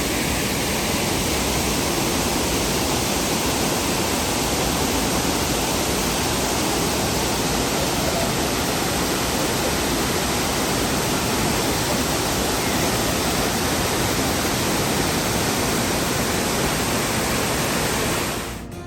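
Shifen Waterfall's water falling in a loud, steady, even rush that cuts off suddenly near the end.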